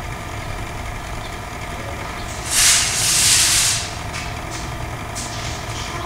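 Nespresso Aeroccino milk frother running with a steady low hum as it heats and froths cream, not yet finished. About two and a half seconds in, a loud hiss lasts just over a second, followed by a few faint ticks.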